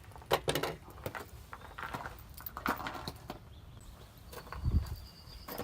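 Handling noise: scattered clicks and knocks, with a dull thump near the end.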